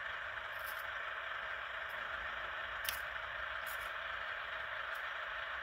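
Simulated engine idle from an Orlandoo D4L sound module, played through the tiny onboard speaker of a stationary micro RC crawler: a steady, thin idle sound with a few faint ticks.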